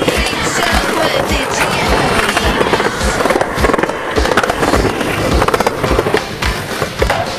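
Skateboard wheels rolling on concrete with sharp clacks of board tricks and landings, mixed with background music that has a steady beat about twice a second.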